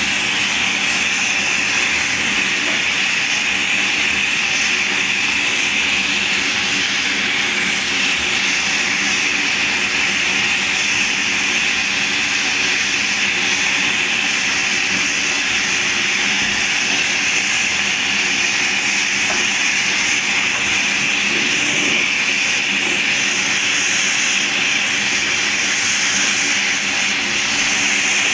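Water running steadily into a bathtub and churning around the boots standing in it, an even rush with no breaks.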